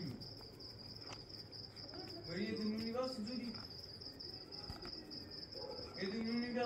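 Crickets chirping in a steady, fast-pulsing high trill. Two short, low voice-like sounds cut in over it, a little over two seconds in and again near the end.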